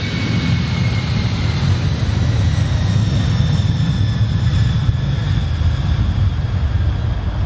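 Boeing 747's four jet engines at takeoff thrust: a loud, steady roar with a deep rumble underneath and high whines that slowly fall in pitch.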